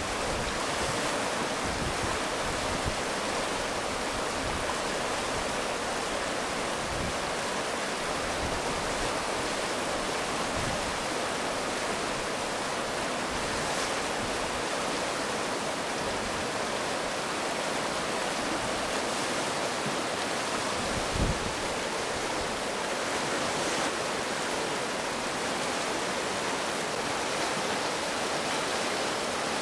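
Steady rush of a fast river running over rocky rapids, with a brief low thump about two-thirds of the way through.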